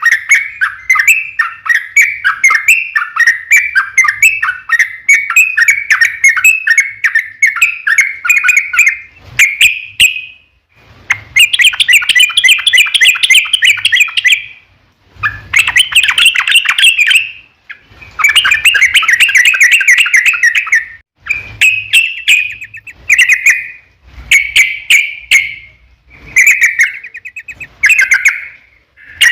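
Yellow-vented bulbul (trucukan) singing: a long unbroken run of rapid bubbly chattering notes for the first nine seconds or so, then a series of loud phrases of two to three seconds each with short pauses between them.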